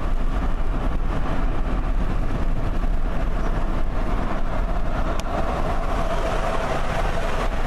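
Steady road and engine noise of a car driving in highway traffic, heard from inside the cabin.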